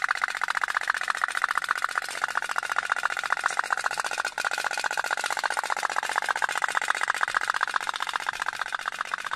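Toy pop-pop (otok-otok) steam boat putt-putting: a fast, even train of pops, many a second, as the candle-heated boiler drives the boat along. It dips briefly about halfway through.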